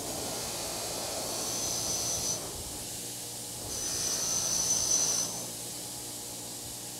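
Bench grinder wire wheel spinning, twice pressed against the steel head of a rusty Estwing hammer to strip the rust. Each contact gives a louder, high scraping hiss, the first about a second long and the second about a second and a half. Near the end the wheel spins free.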